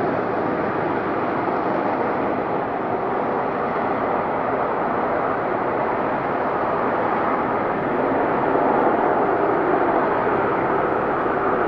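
Lockheed Martin F-35B Lightning II jet engine noise, a steady, loud rush, getting a little louder about eight seconds in.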